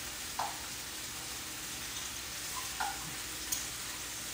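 Chicken frying in a pan with a steady sizzle, broken three or four times by short scrapes of a utensil against the pan as the chicken is cut up and moved about.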